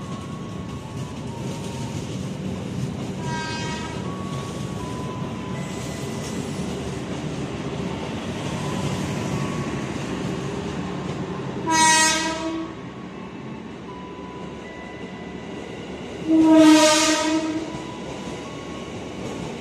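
Passenger coaches of a departing express train rolling past with a steady rumble and faint wheel squeal. A train horn sounds twice, each blast about a second long: once just past the halfway point and again, louder, a few seconds later.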